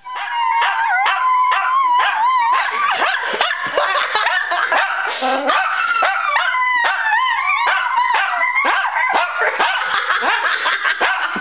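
Small dogs howling and yipping together: several high, wavering cries overlap, broken by short sharp yips.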